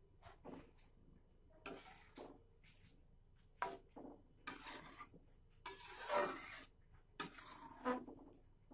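A cooking utensil stirring and scraping in a pan. The strokes come at irregular intervals, with a few sharper knocks against the pan in the middle and near the end.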